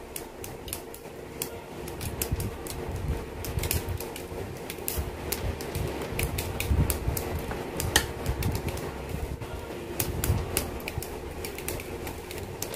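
Hobby side-cutters snipping leftover gate nubs off small plastic model-kit parts: sharp, irregular clicks and snaps as the plastic is cut and handled. A steady hum runs underneath.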